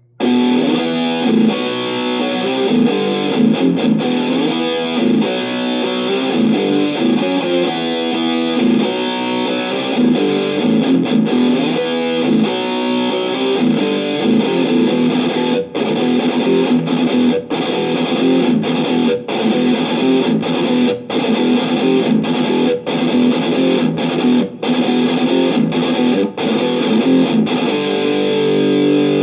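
Electric guitar played through a Positive Grid Spark GO mini amp with a distorted tone, starting suddenly and running continuously. About halfway through, the playing takes on short breaks at a steady beat.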